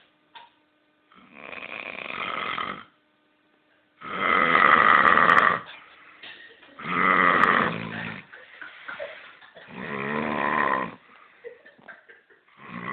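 A man snoring loudly in long, heavy snores, four of them about three seconds apart, the second the loudest; a fifth begins right at the end.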